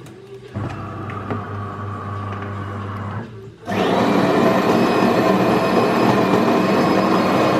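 A small electric appliance motor runs loudly and steadily from about halfway in, a continuous whirring whine. Before it there is only a low, steady hum.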